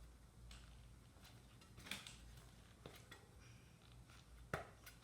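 Faint handling sounds of a mountain bike tire being worked onto its rim by hand, with a few small clicks, the clearest near two seconds in and near the end.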